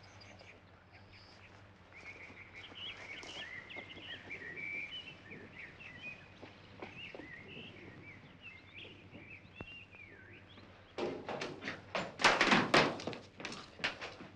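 Songbirds chirping and calling faintly. About eleven seconds in, a run of loud knocks and thuds follows in quick succession.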